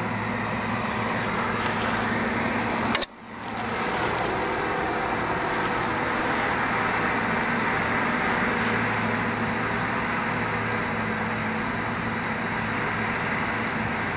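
Case bulldozer's diesel engine running steadily under work, with a brief dropout about three seconds in.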